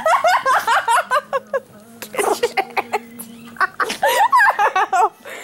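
A person laughing hard in quick repeated bursts, breaking off briefly twice.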